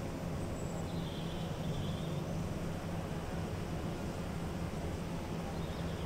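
A hotel ventilation system runs with a steady low hum and hiss. A bird gives a faint high call about a second in.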